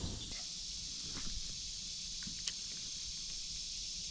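Steady high-pitched chorus of insects such as crickets, with a few faint clicks and knocks, including one sharper tick about two and a half seconds in.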